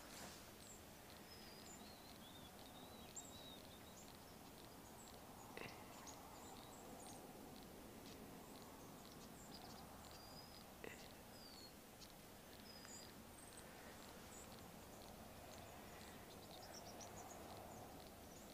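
Near silence: faint outdoor background with scattered small high bird chirps and calls throughout, and a few soft clicks.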